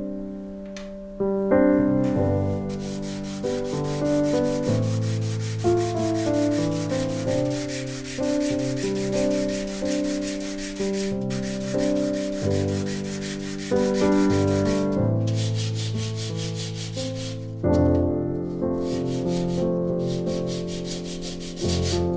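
Hand sanding: a tool's metal blade scrubbed back and forth on a sheet of sandpaper in quick, rhythmic strokes, stopping briefly past the middle and then resuming. Soft piano music plays throughout.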